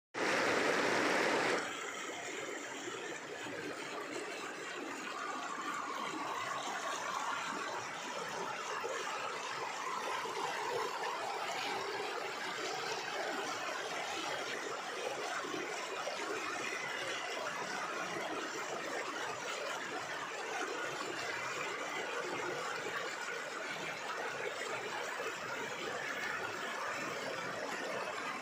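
Fast shallow mountain river rushing over boulders, a steady even roar of whitewater. A louder burst of noise in the first second and a half.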